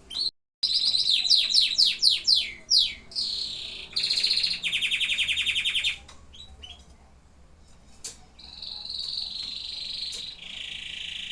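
Domestic canary singing: a quick run of falling whistled notes, then a fast even trill, and after a brief lull a long rolling trill that starts about three-quarters of the way in.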